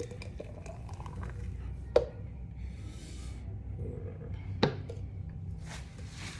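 Two sharp knocks of glass juice bottles being handled on a hard surface, about two and a half seconds apart, with brief rustling between and near the end.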